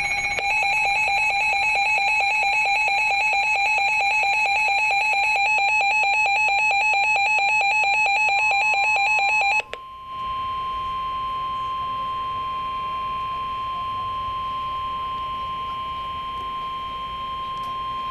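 Weather alert signal: a rapidly pulsing electronic alarm, ringing like a telephone bell, for nearly ten seconds. It cuts off and a steady single-pitched alert tone sounds for about eight seconds, the warning alarm tone that comes before a National Weather Service severe thunderstorm warning broadcast.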